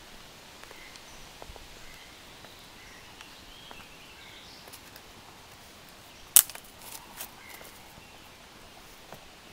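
Quiet woodland ambience with faint, scattered bird chirps. About six seconds in there is one sharp crack, followed by a few smaller clicks.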